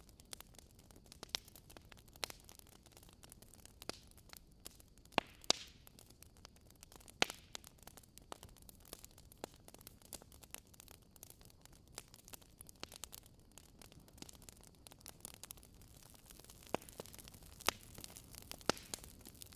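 Wood fire crackling in a fireplace: irregular sharp pops and snaps over a faint steady hiss.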